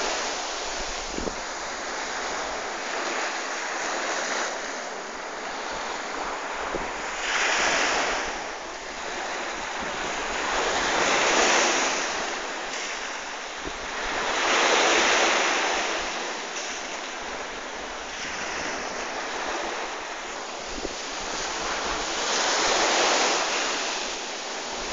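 Surf washing in, a steady hiss that swells and fades every few seconds, with wind buffeting the microphone.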